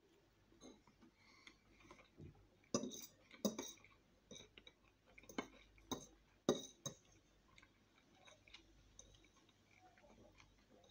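Metal fork clinking and scraping against a plate while twirling spaghetti, with about five sharp clinks in the middle few seconds and softer ticks around them.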